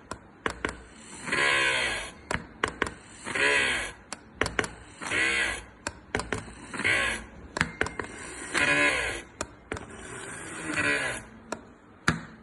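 A homemade drill driven by a 775 DC motor, run in about six short bursts roughly every two seconds while drilling a hole. Each burst is a whine that rises and falls in pitch as the motor spins up and slows, and sharp clicks fall between the bursts.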